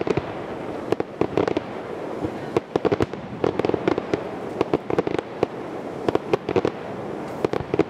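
Fireworks display: quick clusters of sharp bangs from bursting shells, coming about once a second, over continuous crackling.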